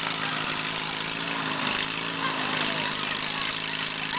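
Riding lawn mower engines running steadily, one engine's pitch dipping briefly about a second and a half in, over a haze of background noise.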